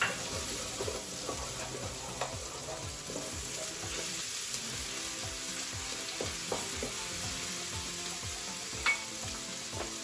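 Chopped onions sizzling as they fry in oil in a pan, stirred with a wooden spoon that scrapes and taps against the pan. A sharper knock about nine seconds in.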